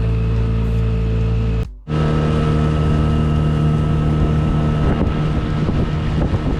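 Jon boat's outboard motor running steadily underway, with wind on the microphone. The sound drops out briefly about two seconds in and comes back at a different pitch.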